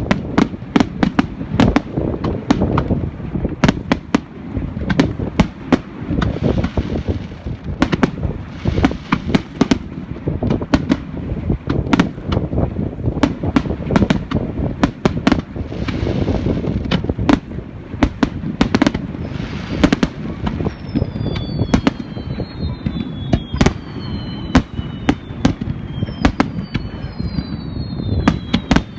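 Fireworks display: a rapid, continuous string of sharp bangs and crackling from aerial shells, with several falling whistles in the last third.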